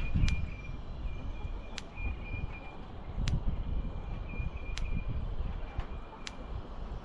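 Wind buffeting the microphone, with a sharp tick about every second and a half from the electric poultry netting's fence charger pulsing.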